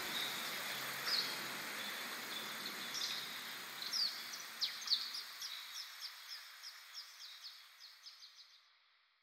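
Rainforest ambience fading out, with a bird calling a steady series of short, high, falling chirps, about two or three a second, that grows fainter until it stops shortly before the end.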